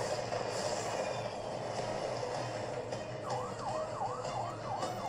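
A siren-like wail starting about three seconds in, sweeping quickly up and down in pitch about three times a second, over a steady hazy background.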